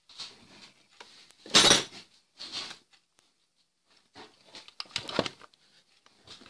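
Handling noise from a VAZ-2106 plastic instrument-cluster panel being moved and turned close to the microphone: rustling and scraping, with two loud bumps about a second and a half in and about five seconds in.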